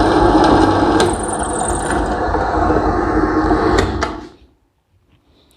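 Bench-type sensitive drilling machine running and drilling a hole through a workpiece, a dense mechanical noise with a thin high whine and a few sharp clicks. About four seconds in the sound dies away quickly as the drilling stops.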